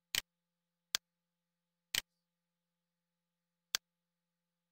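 Four short computer mouse clicks, the first and third of them doubled.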